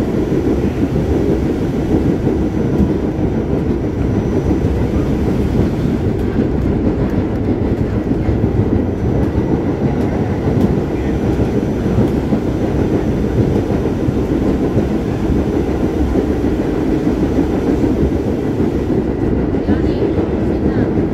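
Staten Island Railway R44 subway car running along the line: a steady rumble with clatter of the wheels over the rails, holding even throughout.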